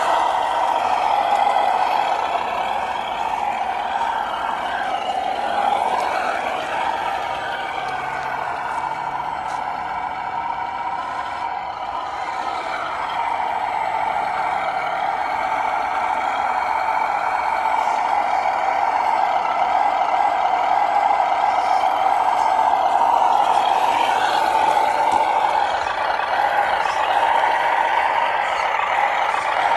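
Electric drive motor and gearbox of a radio-controlled scale Suzuki Jimny crawler whining steadily as it crawls over dirt and rocks, wavering up and down in pitch a few times with the throttle.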